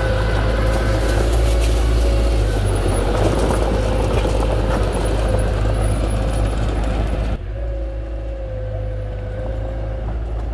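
Heavy machinery's diesel engine running steadily, with a steady whine over the engine note. The sound drops suddenly in level about seven seconds in.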